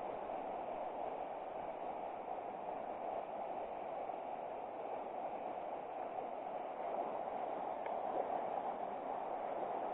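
River water rushing steadily over a riffle, an even running-water noise.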